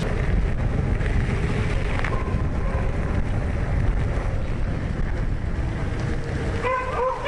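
Wind buffeting the microphone of a handlebar-mounted camera on a moving bike, a dense low rumble mixed with tyre noise on the road. A high whine starts near the end.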